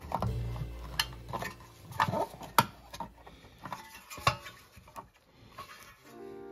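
Irregular sharp clicks and clinks of small hard objects being handled, about one or two a second.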